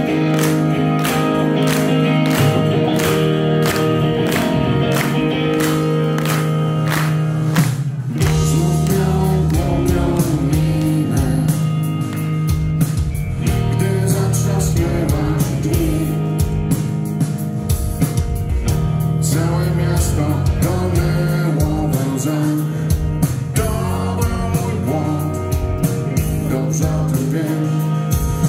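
Rock band playing live: electric guitars, bass and drums, with a male lead singer. The bass and drums fill in and the singing starts about eight seconds in.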